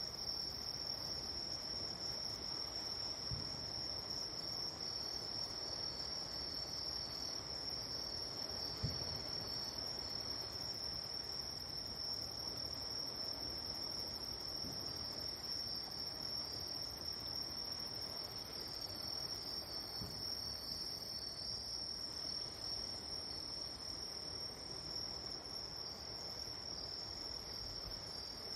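Crickets chirping in a steady, high, unbroken trill, with four faint low thumps of distant fireworks about every five or six seconds.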